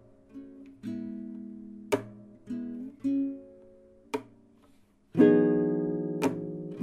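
Slow background music on a solo acoustic guitar: single plucked notes and short phrases with pauses between them, then a full chord strummed about five seconds in and left to ring out.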